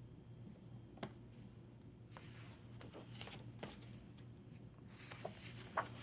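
Faint rustling and a few soft taps of a picture book being handled, over a low steady hum.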